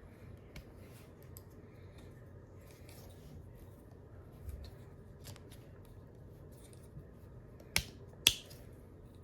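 Plastic parts of a Transformers Deluxe Class Air Raid figure being handled and shifted during transformation: scattered light clicks and rubbing, then two sharp snaps about half a second apart near the end as parts click into place.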